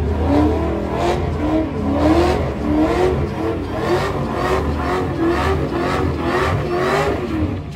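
Cadillac CTS-V coupe's supercharged V8 held at high revs during a burnout, its pitch rising and falling over and over, about every half second, over the hiss of spinning rear tyres.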